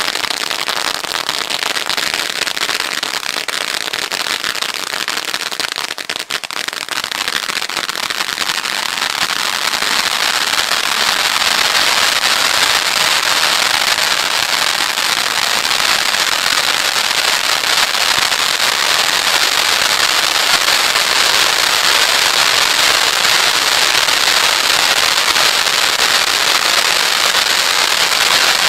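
Ground firework fountain spraying sparks: a continuous loud hiss with dense crackling, growing louder about ten seconds in as the fountain burns higher.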